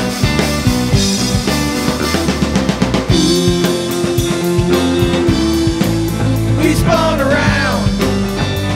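Live rock band playing an instrumental passage: drum kit, bass guitar and electric guitar. A note is held for a few seconds in the middle, then bending, swooping guitar notes come in near the end.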